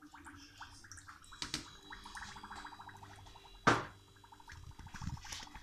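Water trickling and dripping from a jug onto a kilo of sugar in a saucepan, with one sharp knock about three and a half seconds in.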